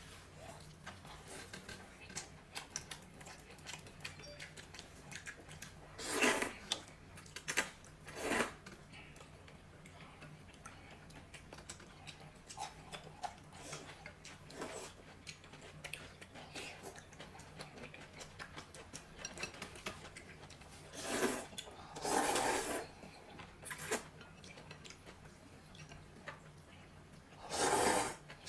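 People eating noodles with chopsticks: small clicks of chopsticks against bowls, broken by six loud slurps of noodles, three a few seconds in, two about two-thirds of the way through and one near the end.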